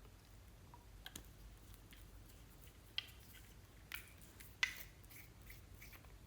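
Slime being handled and mixed, giving scattered small sharp pops and clicks; the loudest comes about two-thirds of the way through.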